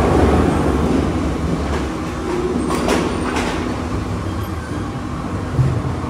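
Industrial firewood processing line running, cutting and splitting logs and carrying them on conveyors: a steady mechanical hum and rumble with a few sharp knocks about three seconds in.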